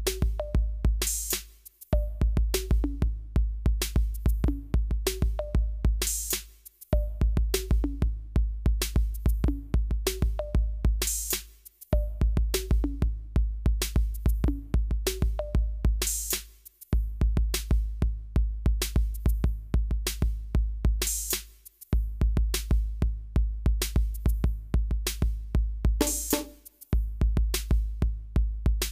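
Background music: a drum-machine beat with heavy bass, briefly dropping out about every five seconds.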